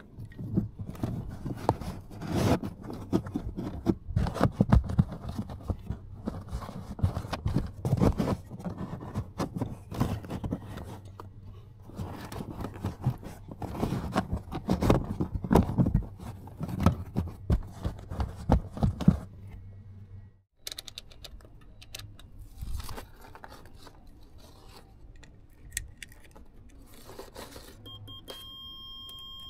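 Irregular metallic clinks, knocks and rattles of hand work with small parts, over a low steady hum. After a cut about two-thirds of the way through it goes quieter, and a short run of electronic beeps comes in near the end.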